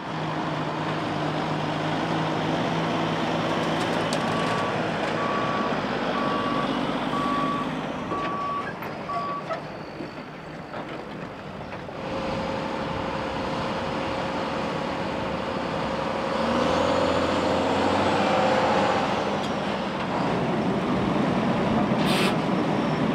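Heavy diesel trucks and a bulldozer running while moving dirt for a levee, with a vehicle's backup alarm beeping about once a second for several seconds in the first half, and a short hiss near the end.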